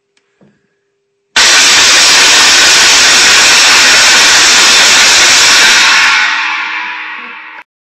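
Air horn blast, so loud the recording overloads into a harsh, hissing roar. It starts suddenly about a second and a half in, holds steady for about five seconds, then fades and cuts off.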